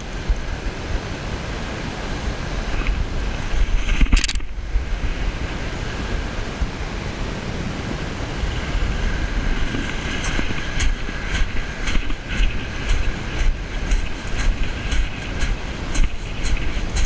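Wind buffeting the microphone over small waves washing on a shingle beach. From about ten seconds in, regular crunching footsteps on the shingle, about two a second.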